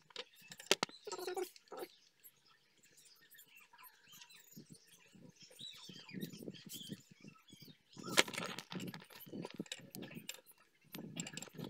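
Hand work on a car engine: clicks, knocks and small metallic rattles as the idle speed control actuator is fitted onto the throttle body and its bolts are tightened with a socket wrench, with one sharp knock about two-thirds of the way in. Birds chirp faintly in the background.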